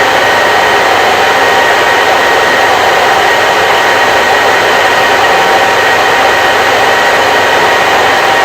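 Hair dryer running steadily: a loud, even rush of blown air with a faint constant whine from the motor.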